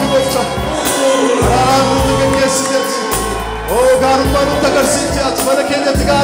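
Oromo gospel worship song performed live: a singing voice gliding between held notes over instrumental backing with a steady bass line.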